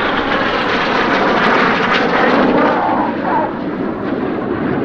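Jet noise from a formation of BAE Hawk T1 jets flying past, loud and fairly steady, easing slightly about three seconds in.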